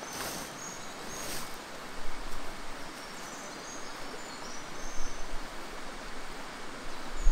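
Steady rush of a shallow rocky river flowing over stones, with a few faint high bird chirps.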